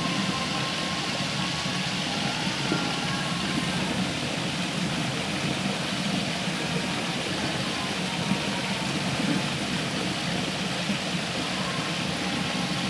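Steady rush of river water flowing over rocks, an even unbroken noise.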